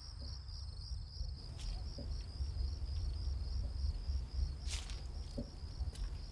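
Crickets chirping in a fast, even rhythm over a low steady rumble, with a few faint ticks.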